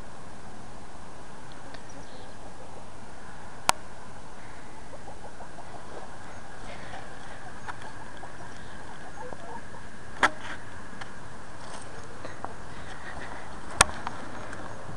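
Camera handling noise: a steady hiss with faint scratching and rustling, broken by three sharp clicks several seconds apart.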